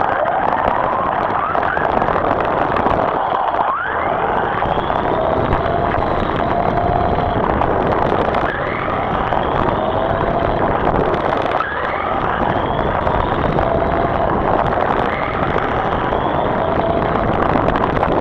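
Remote-control car heard from a camera mounted on the car: its motor whines, sweeping sharply up in pitch about four or five times as it speeds up, over a constant loud rushing noise.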